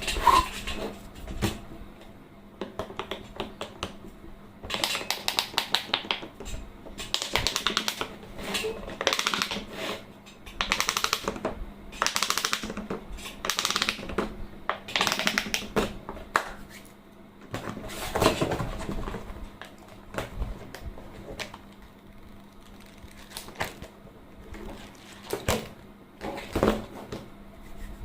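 Silicone pop-it fidget toy having its bubbles pressed, giving quick runs of sharp little pops about a second long, with short pauses between the runs.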